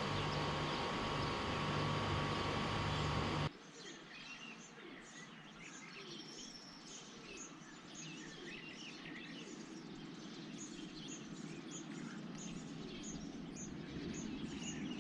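Small birds chirping, many short high calls repeating over faint background noise and growing a little louder. These follow about three and a half seconds of a steady hum that cuts off suddenly.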